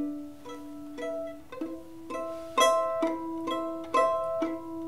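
Violin plucked pizzicato: a slow tune of single notes, about two a second, each sharply plucked and briefly ringing, stepping up to a higher note about a second and a half in.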